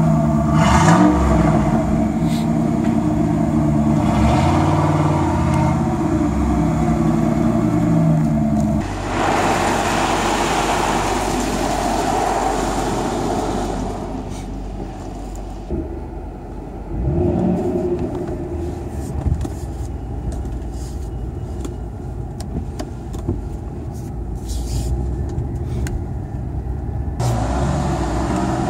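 Third-generation Chevrolet Camaro's engine running, with a brief rev about a second in, then running steadily. Later comes a quieter rushing with scattered sharp knocks, heard from inside a car going through a car wash.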